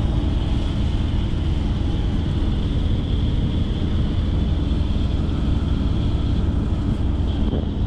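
Steady low engine and road rumble heard inside a moving vehicle's cabin.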